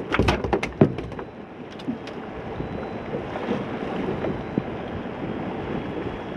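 A quick run of sharp clicks and knocks in the first second, then a steady rush of wind and water noise around the boat.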